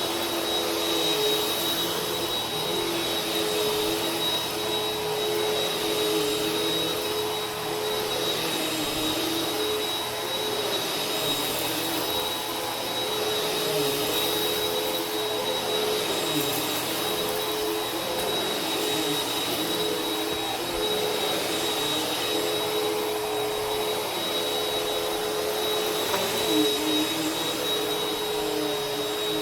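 Vacuum cleaner running continuously: a rush of air under a steady high whine, with a lower hum that wavers slightly in pitch.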